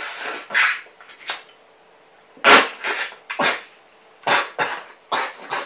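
Someone loudly slurping instant noodles eaten with chopsticks from a cup: about a dozen short, noisy slurps with brief pauses between them.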